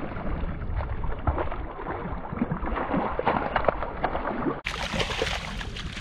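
A hooked speckled trout thrashing and splashing at the surface against a landing net, with irregular bursts of splashing water. A little over four and a half seconds in, the sound cuts abruptly to a brighter, steadier hiss of water.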